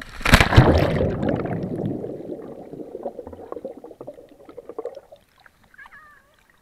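A person splashes into the sea, a loud sudden splash about a third of a second in. It is followed by the rush and bubbling of churning water heard from the submerged camera. The bubbling fades and stops about five seconds in.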